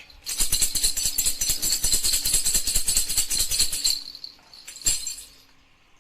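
Baby rattle (jhunjhuna) shaken rapidly for about three and a half seconds, a fast jingling rattle, then shaken once more near the end.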